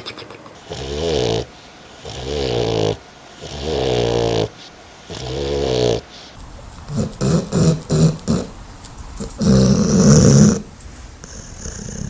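Sleeping dog snoring: four long, even snores about a second and a half apart, then a quicker run of short snorts and one louder snore about ten seconds in.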